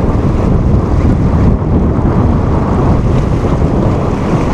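Steady, loud wind buffeting the microphone over the rush of water along the hull of a small sailboat heeled over under sail.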